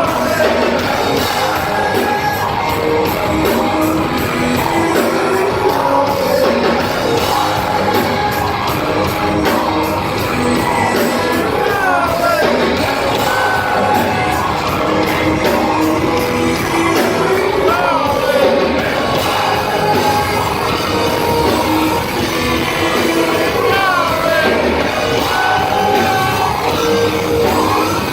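Live hard rock band playing with amplified guitars and drums and a lead singer's sustained, gliding vocal lines, heard in a large hall.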